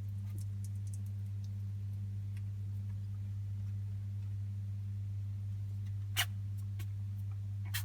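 Pet rat sneezing twice, two short, sharp sneezes about a second and a half apart near the end, over a steady low electrical hum.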